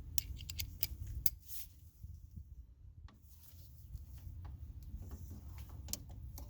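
Metal hand tools being handled, sockets clinking: a quick run of sharp clicks in the first second and a half, then a quieter spell, then fainter scattered clicks.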